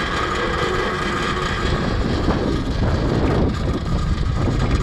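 A custom electric pit bike with a QS Motor 2000 W mid-drive motor being ridden: a steady rumble of wind on the microphone and of the tyres, under a faint, steady whine from the drivetrain.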